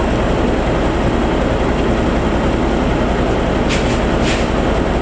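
Railway track-maintenance motor car's diesel engine idling, steady and loud, with an even low pulse. Two brief hisses come near the end.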